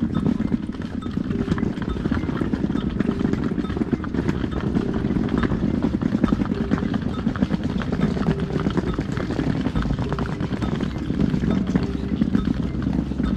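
Small hard wheels of a rolling suitcase clattering continuously over brick paving, with a dense rumble of rapid ticks as they run across the joints, mixed with footsteps.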